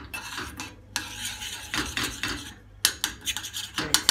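Metal spoon stirring and scraping through melting sugar caramel in a stainless steel pot, with a quick run of sharp clinks of the spoon against the pot near the end.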